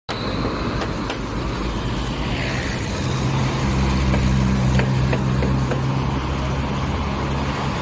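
Busy road traffic, with a nearby vehicle engine running steadily and a low hum that grows stronger about three seconds in.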